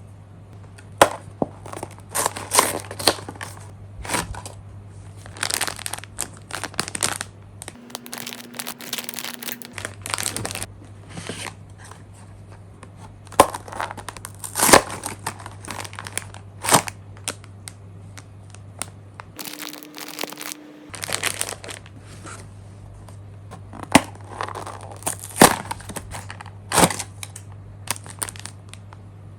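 Packaging being handled and opened: irregular bursts of crinkling and rustling with sharp crackles. A steady low electrical hum runs underneath and drops out briefly twice.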